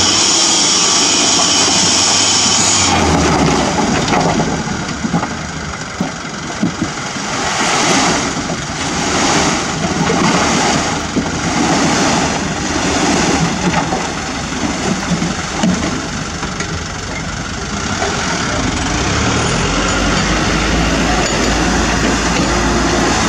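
Toyota Dyna dump truck's engine running while its hydraulic hoist tips the bed and a load of dirt and rocks slides out, in rushing surges about a second apart. A high whine in the first three seconds cuts off suddenly. Near the end a second truck's engine comes in low and steady.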